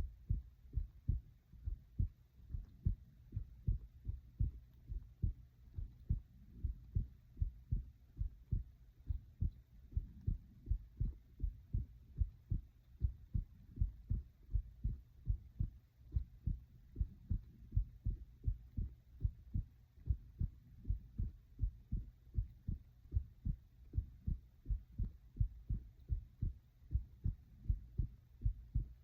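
A person's heart beating in a steady, even rhythm of deep lub-dub double thumps.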